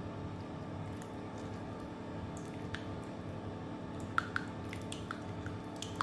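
Egg yolk and water being stirred together for an egg wash: soft wet squishing over a low steady hum, with a few light, irregular clicks of the utensil against the bowl in the second half.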